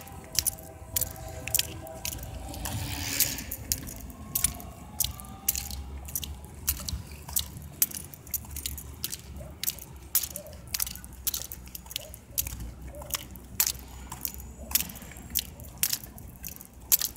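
Irregular sharp clicks and crackles, about one or two a second, over a steady low rumble: handling noise on a cell phone's microphone as it is moved about.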